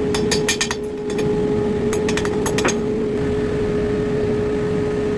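Sharp metallic clinks of tools on steel, in two quick clusters about two seconds apart, over a steady machinery hum with a constant tone.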